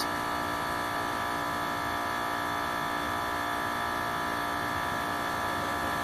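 Heat pump outdoor unit's compressor running with a steady hum, its condenser fan stopped. The unit is in defrost mode, running in air-conditioning mode to warm the coil and melt off the frost.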